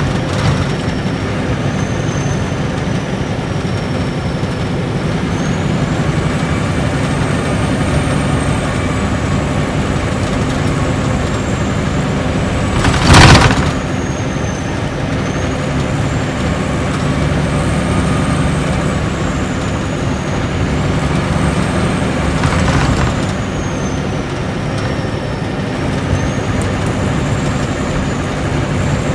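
Cabin running noise of a Nissan Diesel Space Arrow RA coach's inline-six turbo diesel with torque-converter automatic, cruising at highway speed: a steady engine drone under a high turbocharger whistle that slowly rises and falls with the load. About 13 seconds in, a brief loud rush of noise.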